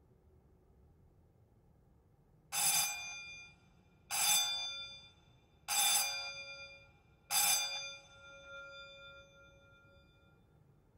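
A wall-mounted metal dome gong bell rings four times at an even pace, each ring sharp at the start and dying away, with the last one ringing on longer.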